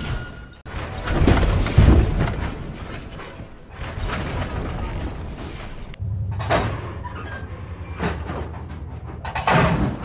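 A run of separate steam locomotive sound effects cut one after another: heavy mechanical clanks and thuds, then a low steady hum with three short hissing bursts.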